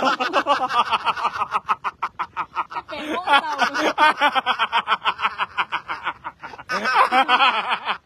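A woman laughing hard in a long, fast run of ha-ha's, breaking off briefly about six seconds in and then laughing again.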